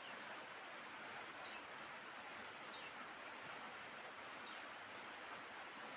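Steady outdoor background hiss with faint, short high chirps now and then, like distant birds.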